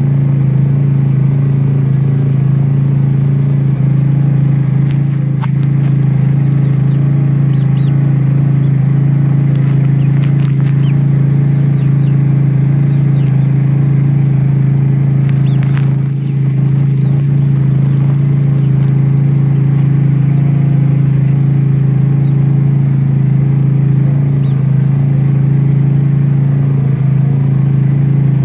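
A loud, steady low mechanical hum, with a few faint sharp taps over it, the clearest about fifteen seconds in.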